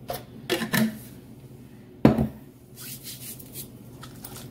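Kitchen handling noise: a few light clicks and clinks of a metal fork against a ceramic mixing bowl, with one louder knock and thump about two seconds in.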